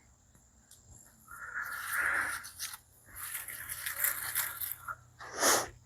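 Irregular bursts of scraping and rustling, with a short louder burst near the end.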